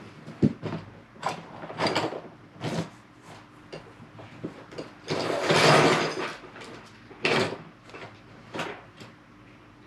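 Plastic Lego Technic pieces being handled: a string of short clicks and knocks as parts are fitted and set down, with a longer rustling scrape about five seconds in.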